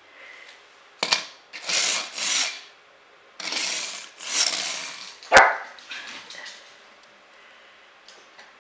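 A small dog barking in a few short, rough woofs, in two clusters, at a wind-up toy it is wary of. A sharp click comes about five seconds in.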